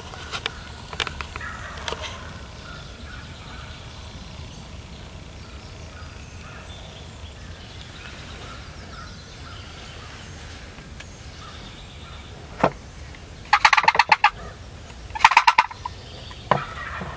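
Wild turkey gobbling twice in quick succession, each gobble a loud rapid rattle, with a single sharp click just before.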